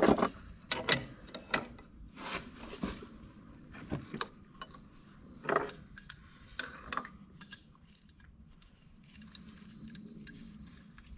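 Small metal parts clicking and clinking by hand as washers and a reverse-threaded nut go onto the bench grinder's shaft to hold the new wire brush wheel. There are sharp knocks in the first half, then lighter, high clinks.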